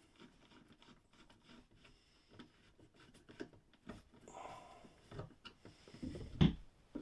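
Quiet, scattered small clicks and scrapes of a screwdriver at work, fastening the screws that hold the cover on a boiler's thermostat receiver, with one louder knock about six seconds in.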